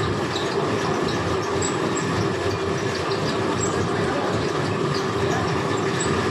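Fabric checking machine running steadily, cloth feeding over its rollers past a wheeled metre counter, giving a continuous mechanical rattle with no change in pace.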